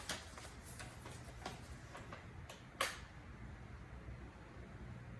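A few light clicks and rustles of handling, with one sharper click about three seconds in, over a faint low hum.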